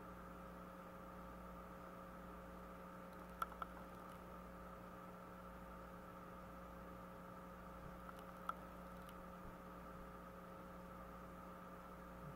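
Faint steady electrical hum over a low hiss, broken by a few brief clicks: two close together about three and a half seconds in and one about eight and a half seconds in.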